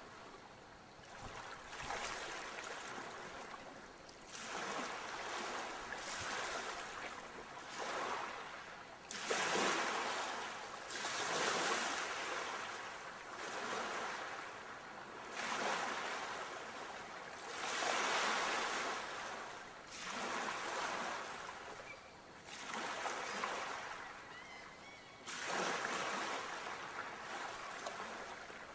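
Ocean waves washing onto a shore, one surge after another every two seconds or so, each swelling and falling away.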